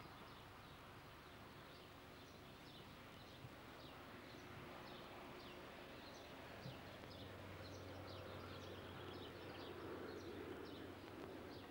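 Faint outdoor ambience of small birds chirping, many short falling chirps several times a second, over a low hum that grows a little louder near the end.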